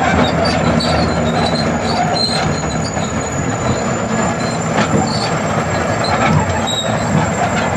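Bulldozer running: loud, steady machine noise with short, high metallic squeals and scattered clanks.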